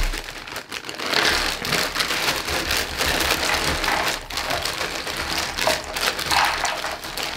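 About a thousand cardboard jigsaw puzzle pieces pouring out of a plastic bag into a cardboard puzzle box: a continuous clatter of many small pieces landing, with the plastic bag crinkling as it is shaken.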